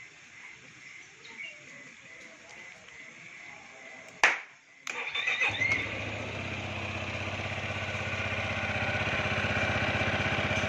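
Yamaha XMAX 250 scooter's single-cylinder engine being started: a sharp click about four seconds in, a brief crank, then the engine catches and idles steadily through a newly fitted Kawasaki Ninja 250 RR Mono muffler. The idle sounds smooth.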